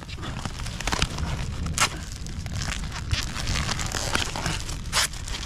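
A parcel's packaging being torn open and crinkled by hand, with irregular crackles and rips.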